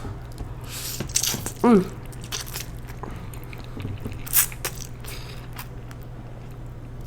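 Close-miked eating: chewing and biting food, with a few wet, crunchy bursts about a second in, a short falling hum of the voice just after, and a sharp click or two in the middle. A steady low hum runs underneath.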